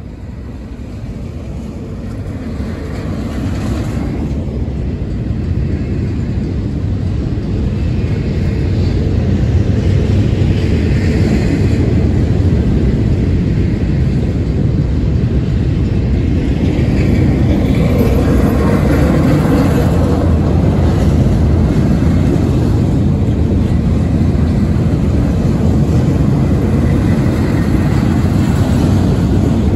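Double-stack intermodal freight train rolling past: a steady rumble of steel wheels on rail that grows louder over the first ten seconds or so, then holds.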